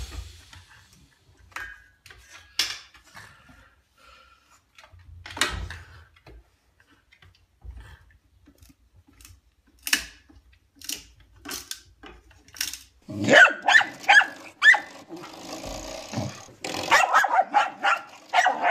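Scattered knocks and taps as a stick held in a French bulldog's mouth bumps against a door frame. Then a dog barks and growls in a quick, busy run of sounds for the last five seconds or so.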